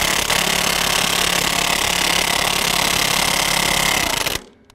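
Craftsman V20 brushless half-inch high-torque impact wrench (CMCF940M1) hammering steadily at full output, driving a wheel lug nut as tight as it will go; it stops about four and a half seconds in.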